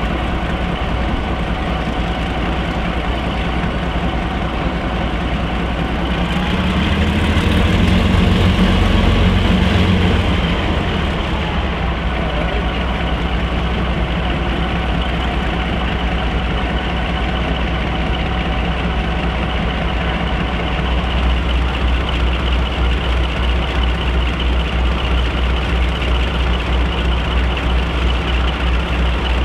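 Class 42 Warship diesel-hydraulic locomotive D821's Maybach V12 diesel engines idling while the locomotive stands. The engine note rises and swells for a few seconds about a quarter of the way in, then settles back. A pulsing low throb sets in during the last third.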